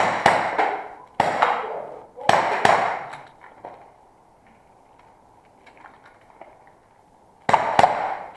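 Airsoft revolver shots with BBs striking targets, each a sharp crack with a short ringing tail: four shots in the first three seconds, a pause, then two more near the end.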